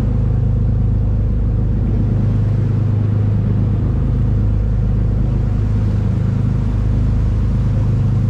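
Sportfishing boat's engine running steadily under way, a low even drone with the rush of the churning wake over it.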